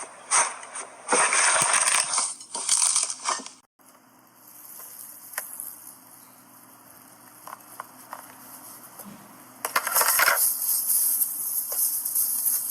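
Slime being squeezed and pressed, making dense crackling, popping sounds. About four seconds in the clip cuts to a quieter stretch with scattered small clicks, and loud crackling returns near the end.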